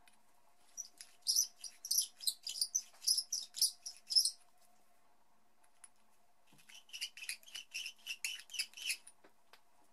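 A hand deburring tool being twisted against the mouth of a 7.62x39 brass case, making quick rhythmic metal-on-brass scraping strokes that chamfer and deburr the freshly trimmed mouth. The strokes come in two runs of about a dozen each, the second run a little lower-pitched and faster.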